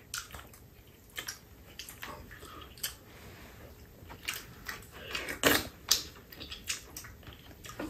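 Eating sounds: chewing, with short clicks of spoons and chopsticks against bowls, coming more often in the second half.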